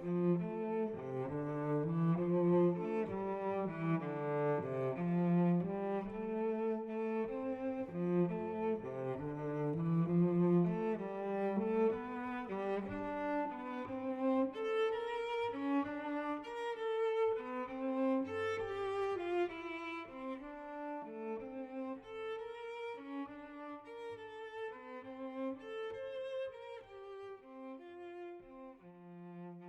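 Instrumental music: a slow melody of held, sustained notes with no singing, gradually getting quieter toward the end.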